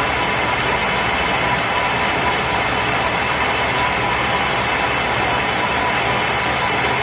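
Metal lathe running under cut as a boring bar machines the bore of a spinning workpiece to seat a taper roller bearing: a steady machining noise with a thin, constant tone, no breaks.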